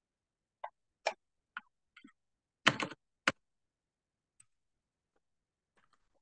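Computer keyboard keystrokes typing an IP address: single key taps about half a second apart, a quick run of several taps just before the middle, then a few fainter taps near the end.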